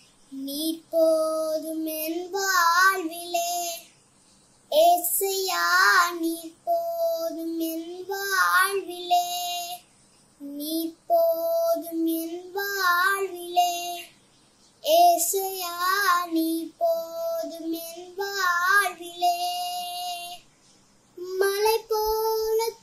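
A young girl singing a Tamil Christian song unaccompanied, with vibrato on held notes. She sings in phrases a few seconds long with brief silences between them.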